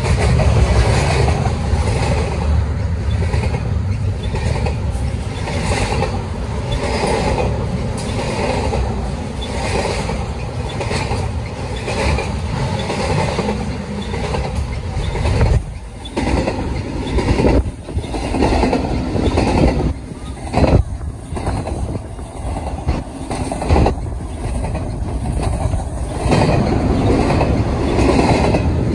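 Double-stack container freight train's well cars rolling past close by, the wheels clattering on the rails in a repeating beat.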